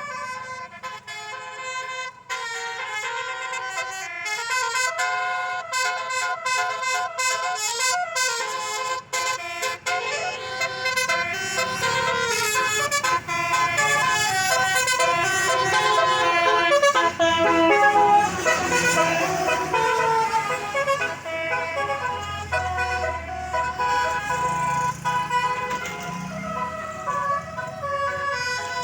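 A tour bus's basuri 'telolet' musical horn playing a tune of quick, stepping notes. A bus engine runs low under it in the second half.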